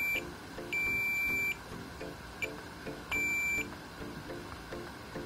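Digital multimeter's continuity/diode-test beeper sounding three times in short, uneven beeps as the probes touch an SMPS output rectifier diode. The beep marks a lower-than-expected reading across the diode, which can show up as a short through the low-resistance load on the output.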